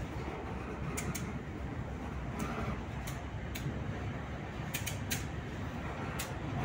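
Diesel-electric locomotive rolling slowly at close range with a steady low rumble. Short sharp creaks and squeaks come irregularly, about a dozen times, from its wheels working on the rails.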